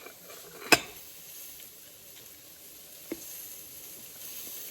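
A sharp click about a second in and a fainter one near three seconds, over a faint steady hiss.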